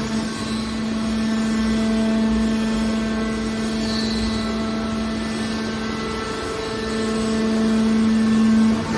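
Hydraulic metal baling machine running: a steady mechanical drone with a strong, even hum, growing a little louder near the end.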